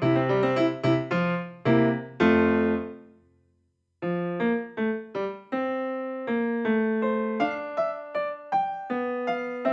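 Background piano music. One phrase ends on a note that dies away about three seconds in, and after about a second of silence a new phrase of piano notes begins.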